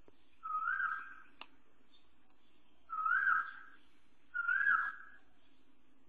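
A bird giving three loud whistled calls, each a short rising note held for about half a second, over faint background birdsong.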